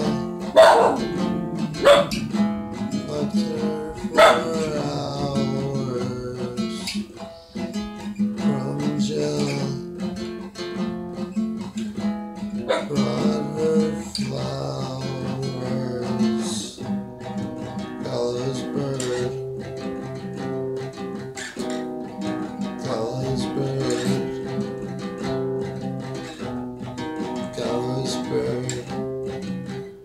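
Acoustic guitar strummed and picked in a steady instrumental passage, with a few falling, sliding notes in the first few seconds.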